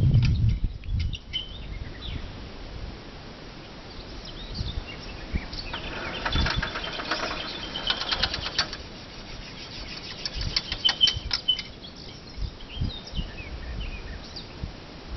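Steel chainsaw-mill carriage pushed along its rails, rattling and clicking irregularly in two bouts, with a few bird chirps.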